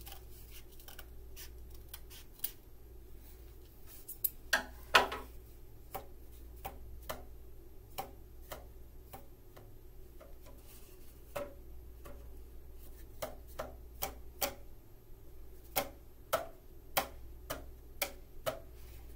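Scissors snipping a cardboard paper-towel tube for the first few seconds, then a series of light, hollow knocks on the cardboard tubes, about two a second, some with a faint brief pitch. The tubes are being struck to compare their pitches while one is trimmed to tune it.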